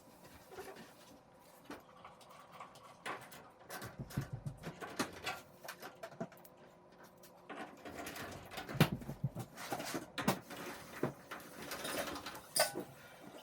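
Irregular knocks, clicks and scrapes of dryer parts being handled as the Samsung dryer's drum is lifted and set onto its rear support wheels and the drive belt is fitted. Heavier thuds come about four seconds in and again between eight and ten seconds in.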